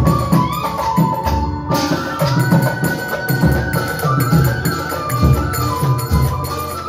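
Live Assamese folk band music: after a thinner opening passage the full band comes in sharply about two seconds in, with a held, stepping flute melody over a steady beat of deep drum strokes.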